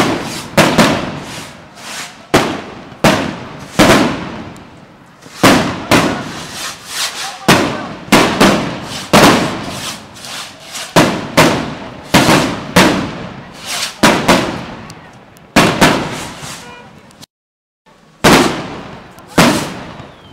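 Firecrackers going off in quick succession, about one or two sharp bangs a second, each followed by a long echoing decay. The sound drops out completely for about a second near the end.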